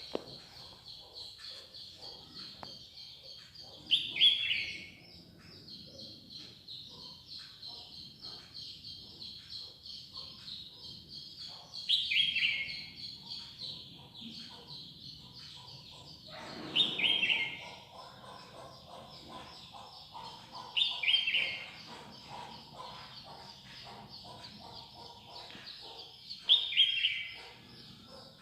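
Birds singing: one bird repeats a loud, short call that falls in pitch, five times at intervals of about four to five seconds, over a steady high, rapid twittering.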